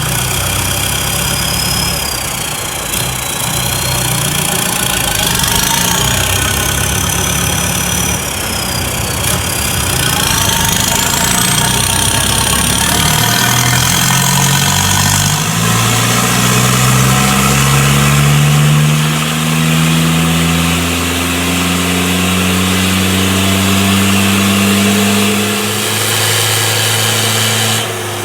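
Mahindra Roxor's 2.5-litre four-cylinder turbo diesel on a chassis dyno, running through a 2.5-inch straight dump pipe off the turbo. It runs unevenly at low revs, then from about halfway in pulls up steadily with rising pitch in a full-throttle dyno run and drops off just before the end, with a thin high whistle gliding up and down above it in the first half.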